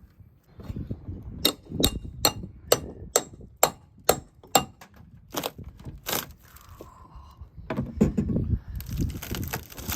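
Sharp striking blows on rotten deck wood and core, about two to three a second for several seconds, then a few slower blows. Near the end comes a stretch of cracking and breaking as material is torn away.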